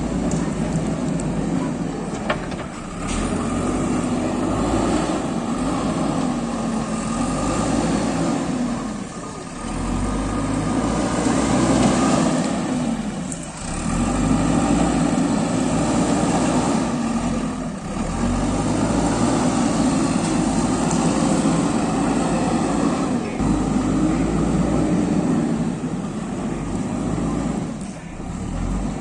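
JCB 3DX backhoe loader's diesel engine working under load, its note rising and falling in repeated cycles every few seconds as the hydraulics work the bucket.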